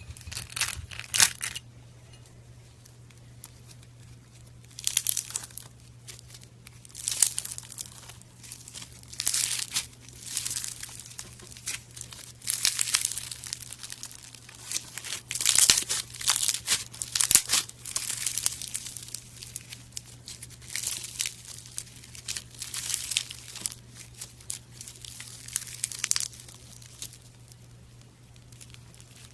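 Homemade slime being squeezed and kneaded by hand, giving irregular bursts of crinkly crackling, some short and some lasting a second or more, over a steady low hum.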